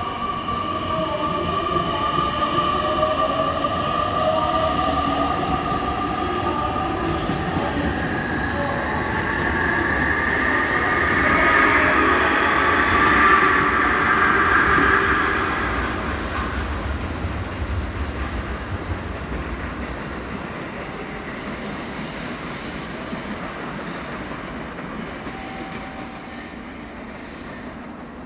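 Electric rapid train on the Kagoshima Line moving through the station, its whining tones rising slowly in pitch. It grows louder to a peak about halfway, then fades steadily as it pulls away.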